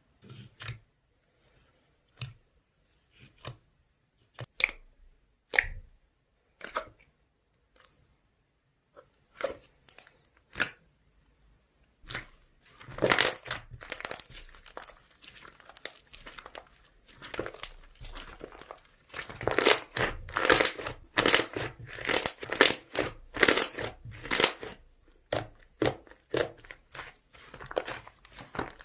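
Slime being played with by hand: scattered sticky pokes and pops for about the first twelve seconds, then continuous crackly squishing and stretching that gets louder and denser from about twenty seconds in.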